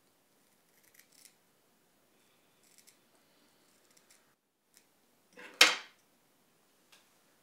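Small fly-tying scissors snipping deer hair, a few quiet snips in the first half, amid faint clicks of handling. About three-quarters of the way through comes one much louder knock.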